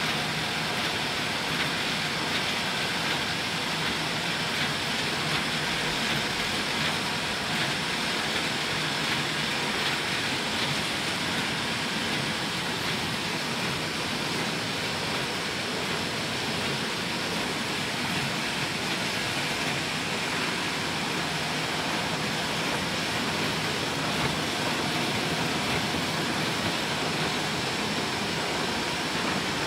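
Roland Rekord four-colour sheet-fed offset press running, a steady, even machine noise without breaks.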